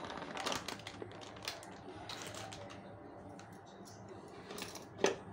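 Plastic packet crinkling and rustling as gram flour is poured from it onto a steel plate: a run of small irregular clicks and crackles, busiest in the first couple of seconds, with one sharper click near the end.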